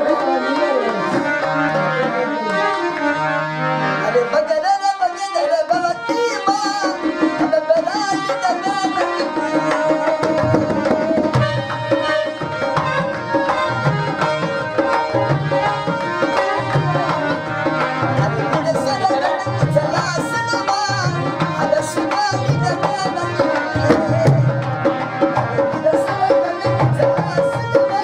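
Rajasthani folk song: a man singing to a harmonium's melody, with a dholak drum beat coming in about ten seconds in and running on under held harmonium chords.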